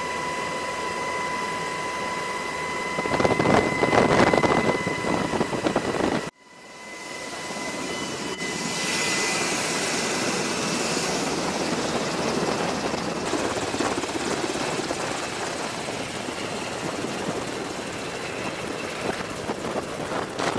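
UH-60 Black Hawk helicopter running, first heard from inside the cabin as a steady engine noise with a high whine. About six seconds in the sound cuts off abruptly. It then fades back in as steady rotor and engine noise with a strong rushing hiss from the downwash.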